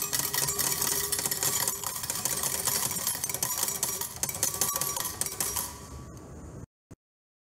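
Coin-change machine paying out coins: a fast, continuous clatter of coins dropping into its metal tray, fading out near the end.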